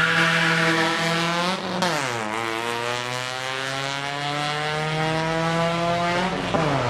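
Drag race car's engine running hard under acceleration. The revs fall sharply about two seconds in, climb slowly again, and fall once more near the end, like upshifts through the gears.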